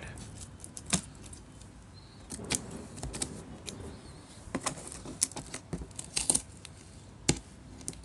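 Scissors and packing tape on a cardboard box being cut and worked open: a scatter of short, sharp snips and clicks at irregular intervals, with light rustling of tape and cardboard between them.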